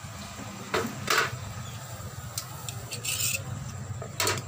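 Metal tongs clinking and scraping against steel skewers and a steel pot as grilled beef pieces are pulled off the skewers into it: several separate short clinks, the loudest about a second in.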